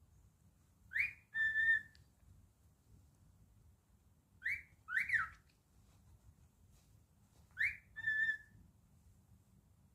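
Cockatiel whistling three short phrases, each a quick rising swoop followed by a brief steady note.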